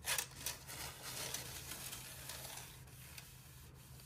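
Oil dipstick of an Audi 1.8 TFSI engine drawn out of its tube with a click, followed by soft rustling and handling as a paper towel is used to wipe it for an oil-level check.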